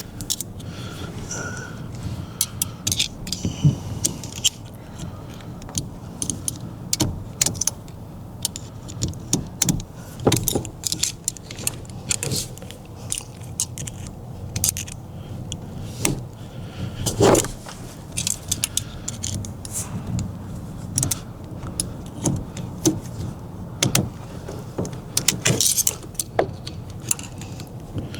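Irregular small metal clicks, clinks and scrapes of a pick and pliers working a retaining clip out of a 1989 Pontiac Firebird's steering column, with one louder knock about 17 seconds in.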